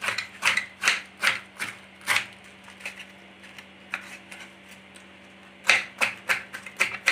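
Kitchen knife shredding cabbage on a plastic cutting board: crisp cutting strokes, about three a second, thinning out in the middle and coming quicker near the end.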